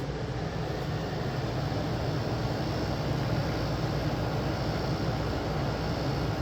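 8000 BTU portable air conditioner running steadily: the fan's air rush with a low, even hum from the compressor, which has just kicked in and pushes the draw up to about 850 watts.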